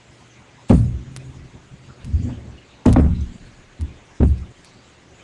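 Cookware and plates being handled in a kitchen: a handful of knocks and thuds, the two loudest about a second in and about three seconds in, with softer ones between and after.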